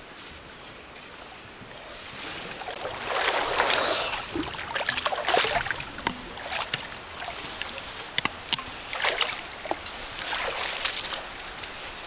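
Pool water splashing and sloshing as a person swims close to the microphone, in irregular bursts with a few sharp slaps, loudest a few seconds in.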